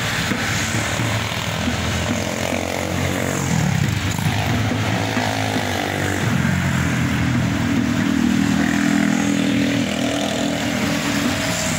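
Road traffic: motorcycle and other vehicle engines running and passing over a steady hum of traffic, their engine note rising and falling as they go by.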